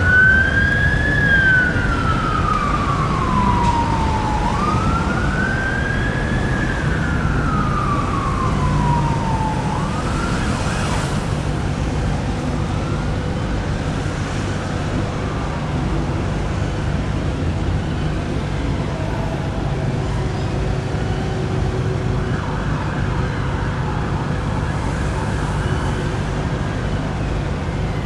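Emergency vehicle sirens on the wail setting, each cycle sweeping up fast and falling slowly over about five seconds, over the steady rumble of heavy city traffic. The wail is loudest in the first ten seconds, then drops back to faint traces under the traffic.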